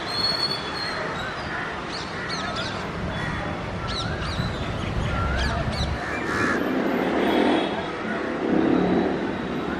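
Crows cawing again and again, about once a second, over steady open-air background noise. In the second half a low rumble swells up twice and is the loudest part.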